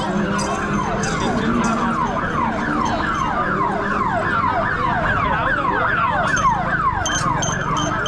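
A siren-like wail sweeping downward over and over, about three sweeps a second, several overlapping at slightly different pitches, held steady throughout.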